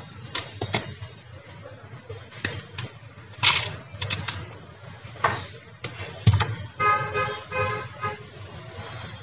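Clicks, taps and rustling of insulated copper wires being handled and fitted into the terminals of a plastic modular switch board, with a louder knock about six seconds in. Near the end a short pitched tone with several overtones sounds for about a second, broken into a few pieces.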